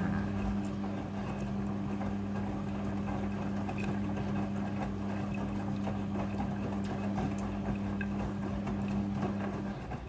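Midea front-loading washing machine filling with water for the first rinse while the drum turns the wet clothes: a steady hum over a churning, sloshing noise. The hum cuts off just before the end.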